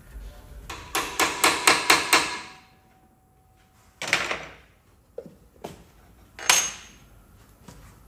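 A hammer striking metal parts of a differential in a workshop: a quick run of about seven ringing blows, then two separate louder metal clanks a few seconds later.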